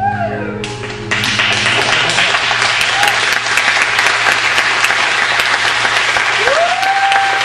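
The last held note of the tango music dies away, and about a second in an audience breaks into steady applause. A voice calls out over the clapping near the end.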